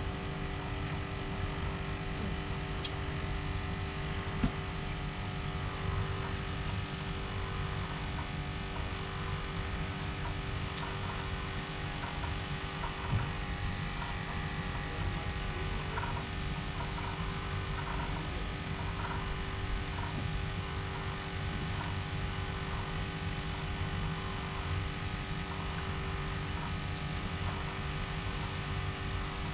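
A boat engine running steadily, a constant even drone, with a couple of light knocks, one about four seconds in and one near the middle.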